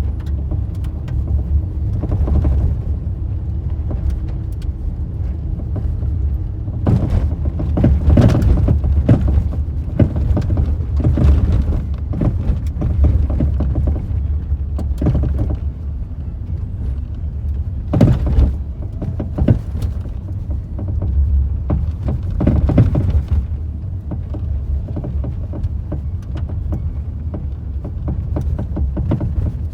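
A car driving over a bumpy, uneven road and a railway crossing: steady low road rumble, broken by a dozen or so sudden thumps and jolts as the car hits the bumps.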